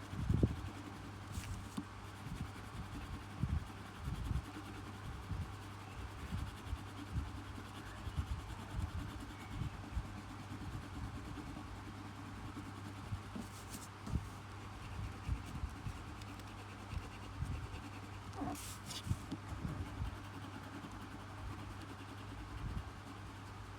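Paintbrush strokes scratching briefly on a painting surface a few times, over frequent soft low bumps and a steady low hum.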